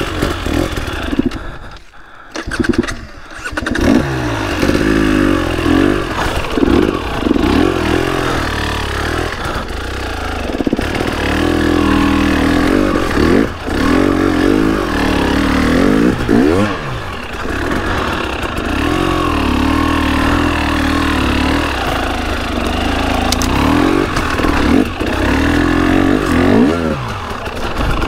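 KTM EXC 300 two-stroke enduro engine revving up and down as the bike is ridden off-road. The engine sound drops away briefly about two seconds in, then picks up again.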